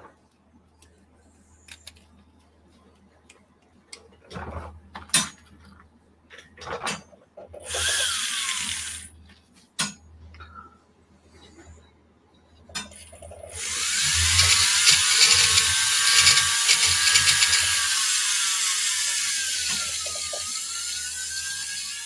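Flexible-shaft rotary tool with a polishing bullet running at speed, with a high whine, polishing the inside of a small metal dagger fitting; it starts about 13 seconds in and its pitch dips briefly under load near the end. Before that come scattered clicks and taps of small parts being handled, and a brief spin of the tool about 8 seconds in.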